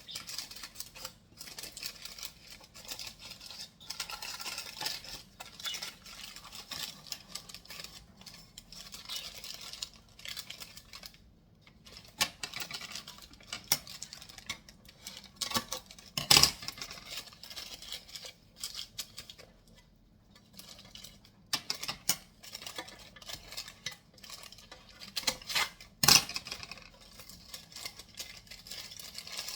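Kitchen handling sounds: dishes and utensils clinking and scraping in irregular bursts, with two sharp, louder knocks, one a little past halfway and one near the end.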